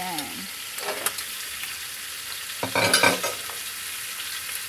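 Pork pieces frying in a stainless steel wok as they are dropped in with tongs: a steady sizzle, with a few sharp tong clicks about a second in and a louder burst of sizzling and clatter about three seconds in.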